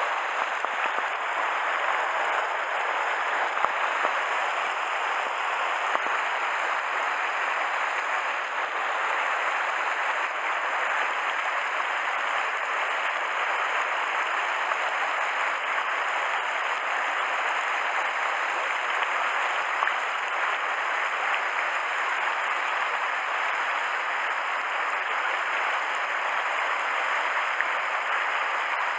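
Steady rush of a mountain stream's flowing water, an even hiss that does not let up.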